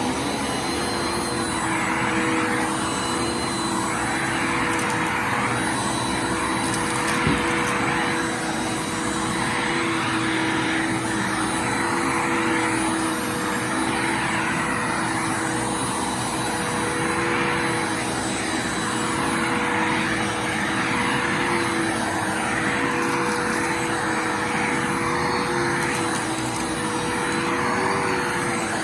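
Bissell Lift-Off Multi Cyclonic Pet vacuum running steadily with a constant motor whine, its rushing airflow swelling and fading every couple of seconds as it is pushed back and forth. A single click about seven seconds in.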